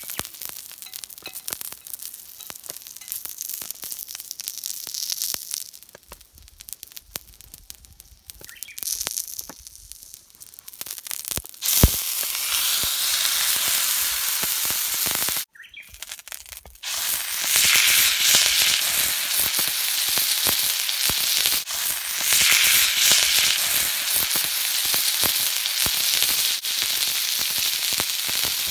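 Thick ribeye steak searing on a homemade extra-thick iron griddle plate over a wood fire. Light crackling at first, then about twelve seconds in a sudden loud sizzle starts as the meat meets the hot plate and holds steady. The sizzle drops out for about a second and then comes back.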